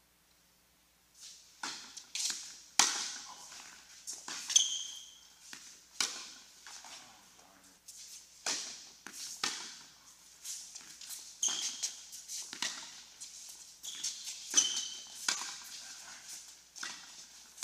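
Doubles tennis rally on an indoor hard court, starting about a second in: sharp racquet-on-ball hits and ball bounces echoing around the hall, with a few short high squeaks of shoes on the court.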